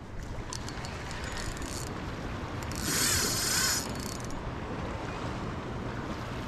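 Wind on the microphone over the sea, with a spinning reel being cranked to retrieve a cast lure. Light clicks come in the first couple of seconds, and a louder rush of hiss lasts about a second around three seconds in.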